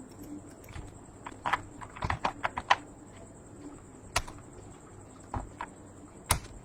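Computer keyboard and mouse clicks: a quick run of keystrokes about a second and a half in, then a few single clicks spaced out, as a result file is looked up and opened on a PC.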